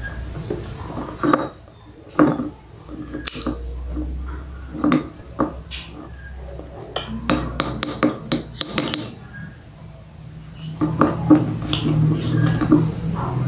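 Slate pencils clinking and tapping against one another and against small terracotta pots as they are handled, a run of sharp clicks with a bright ring, thickest about seven to nine seconds in.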